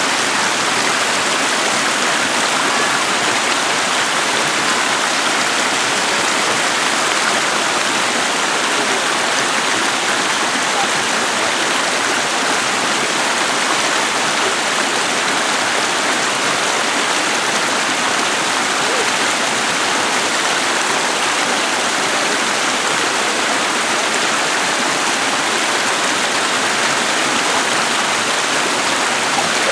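Shallow creek running over rocks: a steady, even rushing of water.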